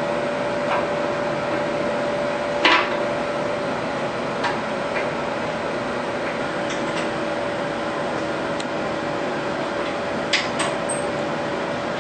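A few scattered sharp clicks and taps of metal hardware as a shower door handle is fitted through the glass and its Allen screws are tightened, over a steady hum.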